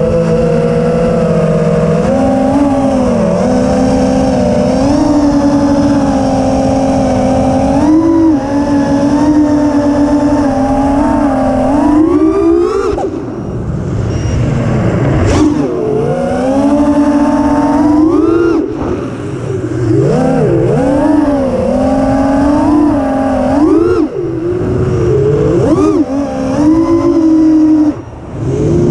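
Brushless motors of a 5-inch FPV quadcopter (T-Motor Velox 2207.5 2550kv spinning Gemfan Hurricane 5143 props) whining in flight over a rough rushing noise. The pitch mostly holds steady, then sweeps sharply up and back down with throttle punches several times, and the sound briefly drops away near the end.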